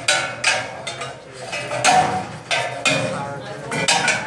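Metal rings hanging from an overhead steel bar clanking and ringing as a competitor swings hand to hand along them: a string of sharp metallic clinks, each followed by a short ring.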